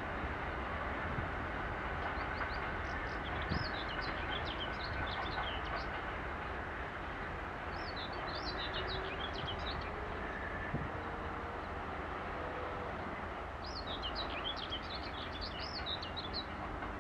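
Steady distant rumble of a freight train moving away, hauled by a GE C36-7i diesel locomotive, with a songbird singing three short, quick twittering phrases over it.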